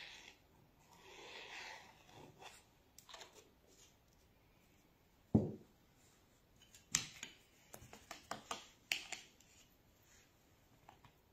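A small glass ink bottle is set down on the table with a single knock about five seconds in. A scatter of light clicks and taps follows, after some soft rubbing near the start.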